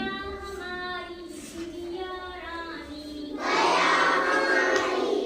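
Children reciting a Hindi poem in sung chant: a single voice carries the line at first, then a group of children joins in together, louder, about three and a half seconds in.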